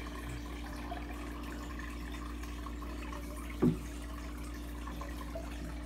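Turtle tank's water filter running: a steady hum with water trickling. A single short, low thump a little past halfway through.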